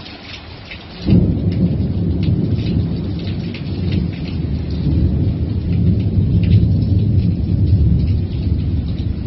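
Rain pattering, then about a second in thunder breaks out suddenly into a loud, long, low rumble, with raindrops still pattering over it.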